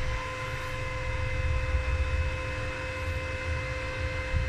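MegaTec ZX7-225C mini inverter stick welder switched on and idling, its internal cooling fan running at full speed. It makes a steady mid-pitched hum with overtones over a low rumble.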